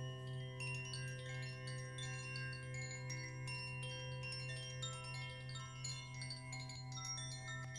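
Large gongs ringing with a steady low hum under many overlapping tones. Light, chime-like high notes keep coming in on top.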